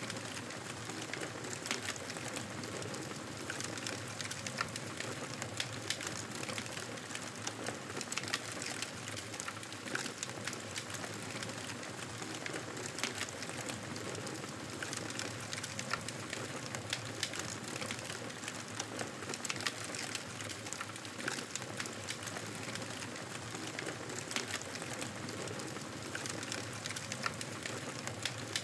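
Campfire burning, with an irregular crackle of small sharp pops and snaps over a steady hiss of flame.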